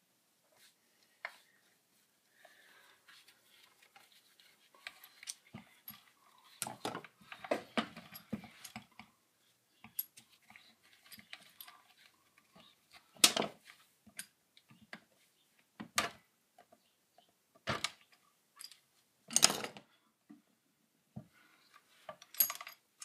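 Chainsaw parts being handled during hand disassembly: plastic housing and small metal pieces clicking and rattling. A run of quicker small clicks comes in the first third, then a few louder single knocks.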